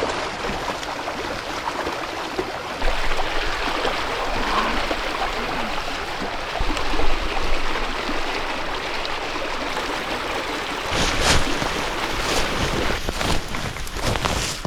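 Steady rush of running water, like a stream, with a few short rustles or knocks near the end.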